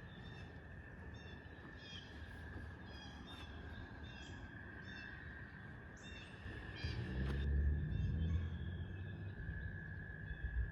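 Birds calling over and over in short notes above a steady high-pitched hum, with a louder low rumble for a couple of seconds just past the middle.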